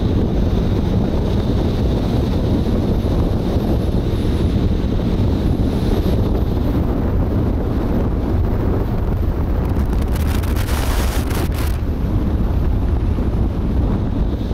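Wind buffeting the microphone of a camera mounted outside a moving car, over the steady rumble of the car on the road. A brief crackling hiss comes about ten seconds in.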